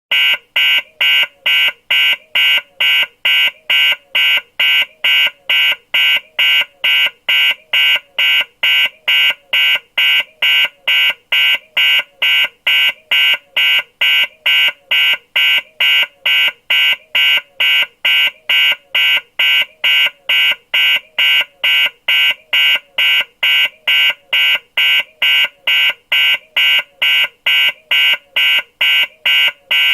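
Electronic security alarm beeping loudly and steadily: short, high-pitched, shrill pulses repeating evenly about twice a second without let-up.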